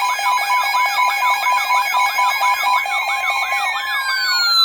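Electronic emergency alert tone: a steady two-note attention tone layered with a fast warbling siren, about four to five warbles a second. Near the end a tone slides steadily downward before the sound cuts off abruptly.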